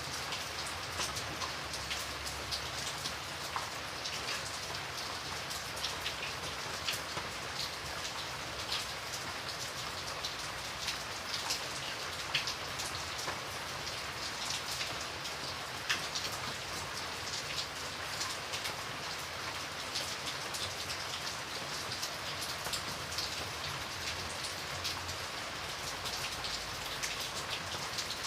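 Steady rain falling, an even hiss with many separate drops clicking sharply on a surface.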